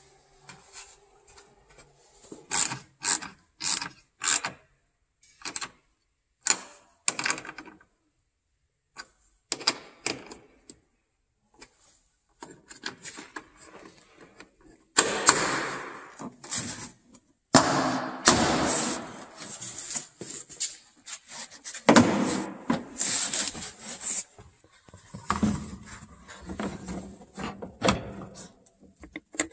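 Plastic exterior trim on a car's rear, a taillight and a mud guard, being handled and pressed into place: a quick run of sharp clicks a few seconds in, then longer stretches of plastic scraping and rubbing against the body, broken by knocks.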